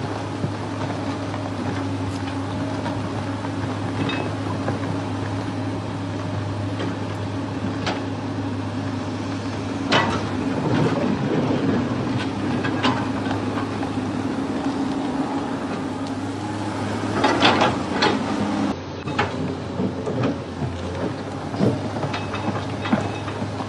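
Steady mechanical running drone of a vehicle with a constant low hum, broken by clanks and knocks, the loudest cluster about three-quarters of the way through.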